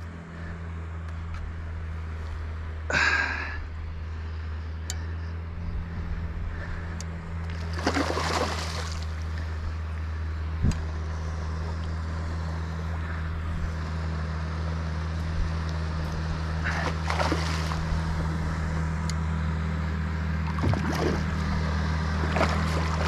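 Small boat's outboard motor idling steadily with a low hum. Three brief louder noises stand out over it, about three, eight and seventeen seconds in.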